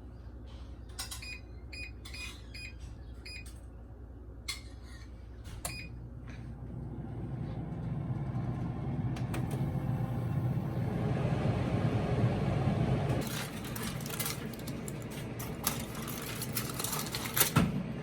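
Air fryer control panel beeping as its buttons are pressed: a quick series of short, high beeps in the first six seconds, as the cook time is set. Then the air fryer's fan starts running, a steady hum that grows louder and drops off after about thirteen seconds. A few clicks and clatters follow near the end.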